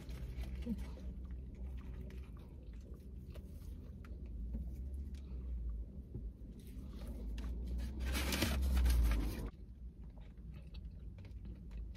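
A person biting into and chewing a hamburger close to the microphone, over a steady low hum. A louder burst of noise builds about eight seconds in and stops suddenly a second and a half later.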